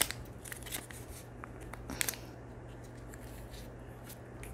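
Small plastic clicks and scrapes of fingernails prying at a plastic Kinder egg that won't open, several ticks in the first two seconds, then sparser.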